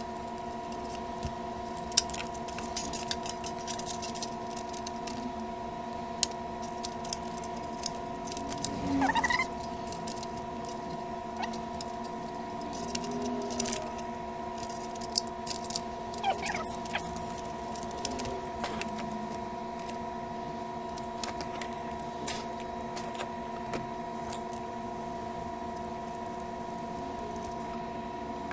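Scattered light clicks and taps of plastic monitor parts and small tools being handled during reassembly, over a steady background hum. A short rising squeak sounds about nine seconds in and again about sixteen seconds in.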